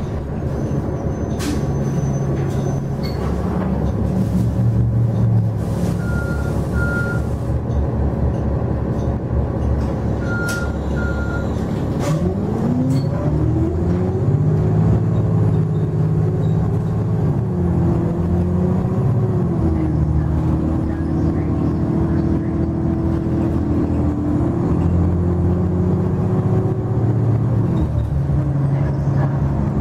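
Cummins ISL9 diesel and Allison B400R automatic transmission of a Nova LFS city bus, heard from inside the cabin: running at low revs, then about twelve seconds in pulling away, the engine pitch rising and stepping down at each of several upshifts. A hiss of air comes about six seconds in, and two short double beeps sound in the first half.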